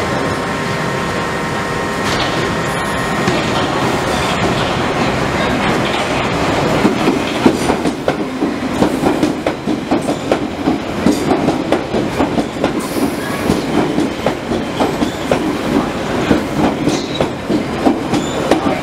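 London Underground 1973 tube stock train approaching and running past along the platform. The rumble grows louder over the first several seconds, then turns into a rhythmic clatter of wheels over rail joints, about two beats a second, as the cars pass.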